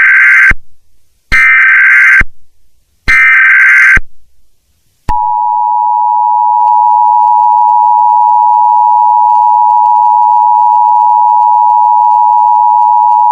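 Emergency Alert System tones. First come short bursts of SAME header data, each about a second long and about a second apart. After a pause, the steady two-tone EAS attention signal starts and holds for about eight seconds, announcing that an alert message follows.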